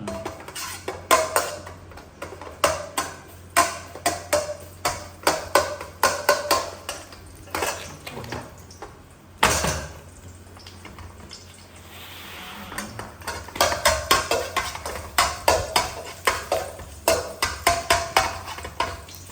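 Kitchen utensils clinking and knocking against pots and dishes, several sharp strikes a second, some with a short ring, with a brief hiss about twelve seconds in.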